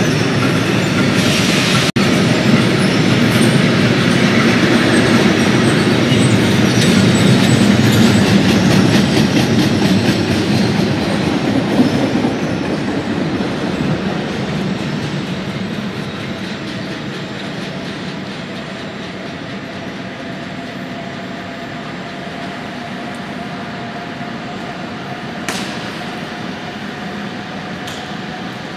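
Freight train of covered sliding-wall wagons passing close by, wheels clattering over the rail joints in a loud, dense rumble that fades away after about twelve seconds. It is followed by a quieter steady rail-station din with a thin, steady whining tone, and two short clicks near the end.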